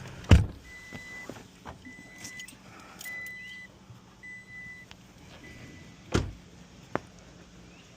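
Car's door-open warning chime sounding five steady beeps a little over a second apart. A heavy thump comes just after the start and another about six seconds in, as the door is shut and the chime stops, followed by a sharp click.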